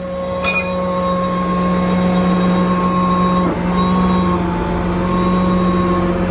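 John Deere tractor's diesel engine running steadily close by, a loud even drone with a short dip about halfway through.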